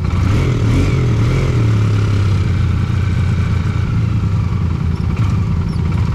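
Off-road vehicle engine running, its revs rising and wavering briefly about half a second in, then holding steady.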